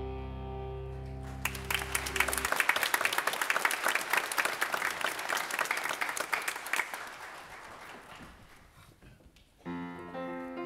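A held final chord with guitar rings out and stops, while a congregation applauds; the clapping starts loud and dies away over several seconds. About a second before the end, instrumental music starts a new piece.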